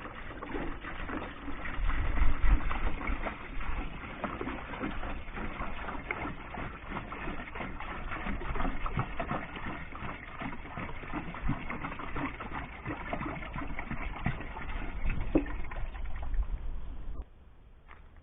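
Water pouring from a container into a mini washing machine's tub, with irregular knocks, stopping abruptly near the end.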